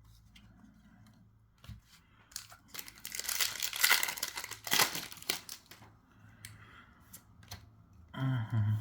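A Magic: The Gathering booster pack's foil wrapper being torn open and crinkled: a dense crackle lasting about three seconds from about two and a half seconds in, with lighter handling rustles and ticks around it.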